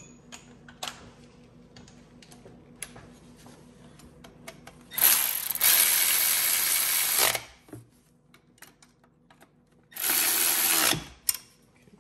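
A power tool running in the 10 mm bolts that hold the fuel rail bracket, in two bursts: about two seconds long starting some five seconds in, then about a second long near ten seconds in. Small clicks of tools and parts between.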